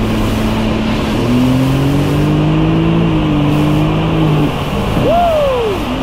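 Sea-Doo GTX 230 personal watercraft running hard over ocean swells, its engine note steady over rushing water and wind. The note lifts about a second in, then about five seconds in it shoots up sharply and falls straight back down, as when the jet pump briefly leaves the water coming off a swell.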